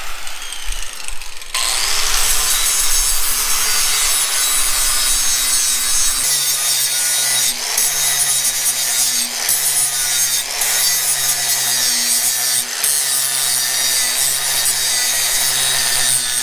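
Flap wheel on a power grinder grinding a steel exhaust tailpipe: a steady rasping hiss of abrasive on metal over the grinder motor's hum. It gets louder about a second and a half in and dips briefly a few times.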